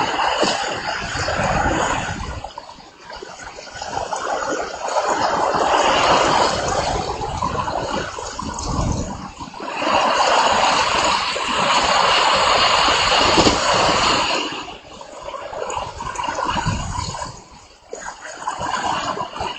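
Heavy rainstorm: pouring rain with strong wind gusts that swell and ease every few seconds, the wind buffeting the microphone.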